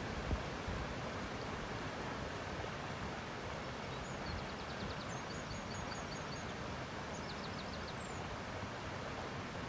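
Steady rushing of a flowing river, with faint high bird chirps in three short rapid runs midway through.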